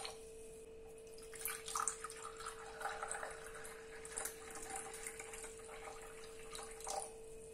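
Tea poured in a thin stream into a glass mug, a faint trickling and splashing that starts about a second in and tails off near the end, over a faint steady hum.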